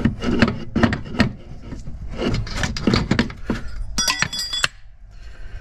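Metal clanks and rattles as the old front lower suspension arm is worked off the car by hand. About four seconds in comes a brief, bright metallic ringing clink as the metal parts knock together or meet the paving.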